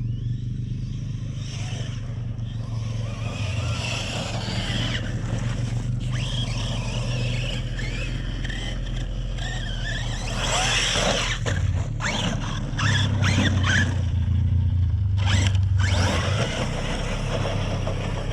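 Brushless electric RC car being driven hard over dirt, its motor whining up and down with tyres scraping and spraying loose ground. There are rougher, louder scraping stretches a little past halfway and again near the end.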